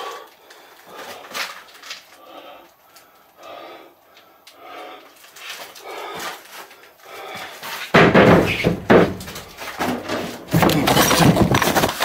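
Heavy, rapid breathing. About eight seconds in, a loud rushing blast starts: a hand-held fire extinguisher being discharged. It stops briefly after a couple of seconds and then blasts again.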